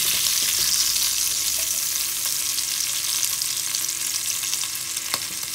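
Chunks of meat sizzling as they brown in a hot enameled cast-iron Le Creuset pot, with a steady hiss, stirred with a wooden spatula at first. A single click about five seconds in.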